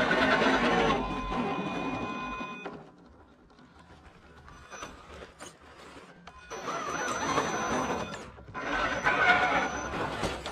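Vaterra Ascender Ford F100 RC crawler's sensored Castle 1406 brushless motor and geared drivetrain whining as it climbs, the pitch wavering with the throttle. It eases off over the first few seconds and goes quiet, then whines again from about six and a half seconds in, with a short pause near eight seconds.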